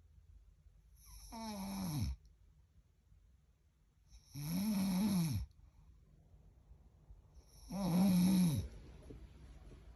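Snoring: three loud, pitched snores about three seconds apart, each dropping in pitch as it ends.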